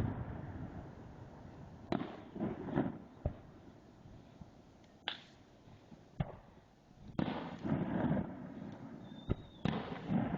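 Aerial fireworks shells bursting in a rapid irregular string of booms, each rolling on in echoes off the surrounding canyon walls, with a dense cluster about three-quarters of the way through and a brief high whistle near the end.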